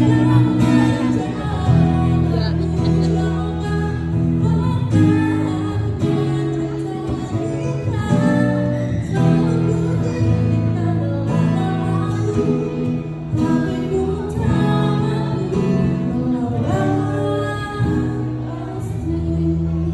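A woman singing into a microphone, amplified through a PA, with an acoustic guitar accompanying her.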